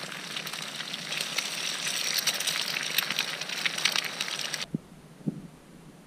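Eggs and sliced sausage frying in a cast-iron pan over a campfire: a dense sizzle peppered with sharp crackles. It cuts off suddenly about three-quarters of the way through, leaving a quiet background with a couple of low knocks.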